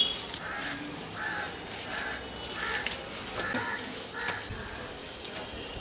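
A bird calling over and over: about six short calls, roughly one every three-quarters of a second, which stop about four and a half seconds in. A few faint clicks and rustles sound in between.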